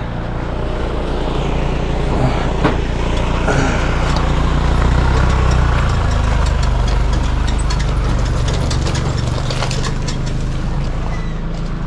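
Delivery truck's engine running at low revs, a steady deep drone that grows a little louder in the middle and eases off later.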